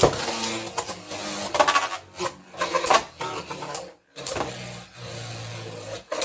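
Beyblade Burst tops spinning in a plastic stadium, a steady mechanical whirr broken by sharp clacks as they strike each other, the loudest right at the start; the sound drops out briefly about four seconds in.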